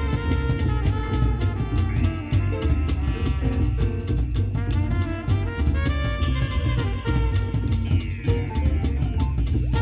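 Club jazz with drum kit and brass and a steady beat, played through a car cabin audio system: Technics tweeters and FaitalPRO three-inch midrange and eight-inch midbass drivers driven by Luxman amplifiers.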